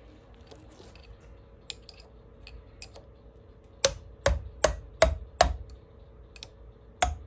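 Metal knocks: a regular screwdriver striking the top of a Graco airless-sprayer pump's piston rod, tapping the rod down into the cylinder and packings. There are faint ticks first, then five sharp knocks in quick succession about four seconds in, and one more near the end.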